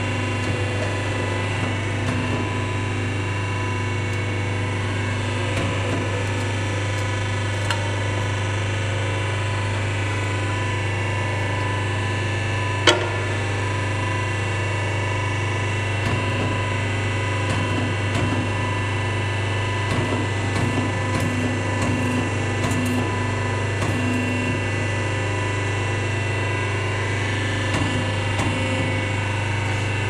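Air suspension crimping machine's hydraulic power unit running steadily, a constant low hum with steady tones above it. A single sharp click about halfway through, and a fainter one earlier, as the metal ring is handled in the dies.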